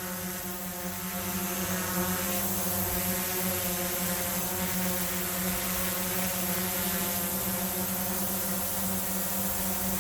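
Autel EVO quadcopter drone hovering, its propellers giving a steady buzzing hum with a strong low tone, heard from about a metre in front. The hum gets a little louder about a second in. At that distance it reads about 66 dB on a sound meter.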